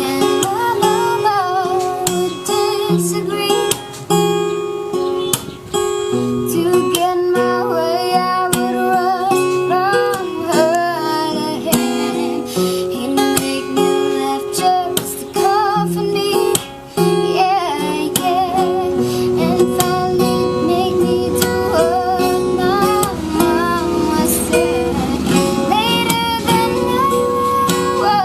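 A child singing an ornamented melody with wavering vibrato, accompanied by a plucked acoustic guitar.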